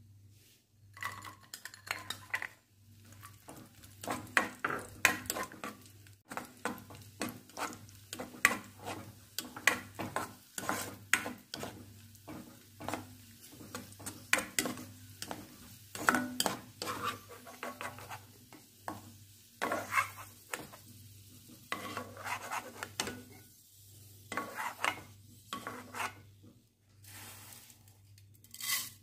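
A spatula stirring and scraping dry fruits frying in ghee in a non-stick pan: irregular knocks and scrapes against the pan over a light sizzle.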